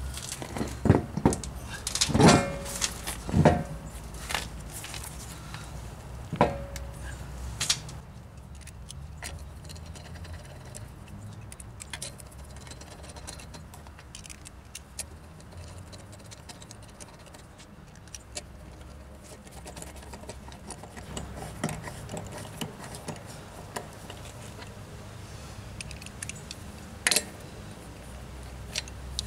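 Metal clinks and knocks as a wheel is hung on wheel-spacer studs and lug nuts are handled and threaded on by hand; most of the sharp, ringing clinks come in the first several seconds, then only light ticks, with one more loud clink near the end.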